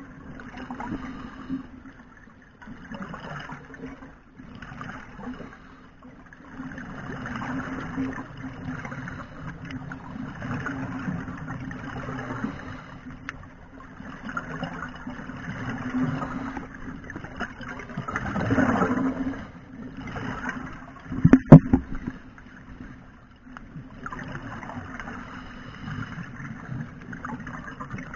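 Underwater sound of scuba divers breathing through their regulators: exhaled bubbles gurgling in irregular swells over a steady low hum, with one loud sharp burst about 21 seconds in.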